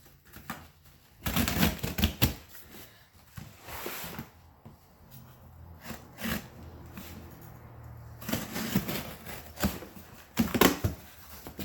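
Cardboard shipping box being opened and handled by hand: irregular bursts of rustling, scraping and knocks, the loudest about ten and a half seconds in.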